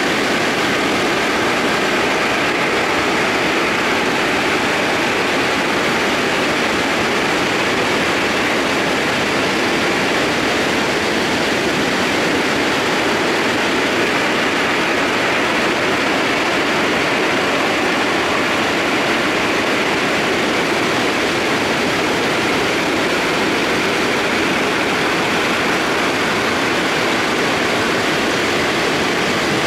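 Mountain debris flow (mudflow) of rocks, mud and water surging down a scree channel: a steady, loud rushing noise of churning water and tumbling stones.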